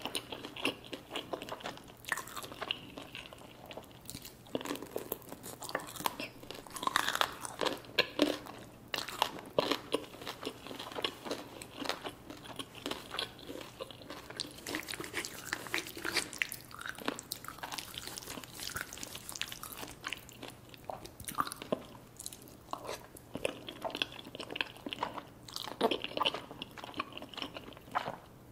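A person eating close to the microphone: repeated bites and crunches with chewing, many irregular sharp clicks throughout, from eating chicken wings and creamy alfredo pasta.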